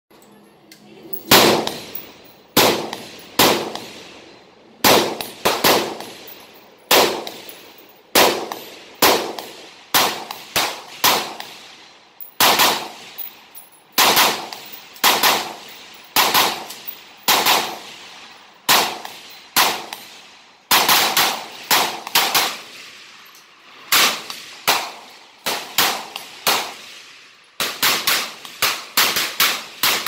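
FN SCAR 16S semi-automatic rifle firing 5.56 mm rounds: dozens of sharp shots at an uneven pace, often two or three in quick succession, with a fast string of shots near the end. Each shot rings out with a short echo.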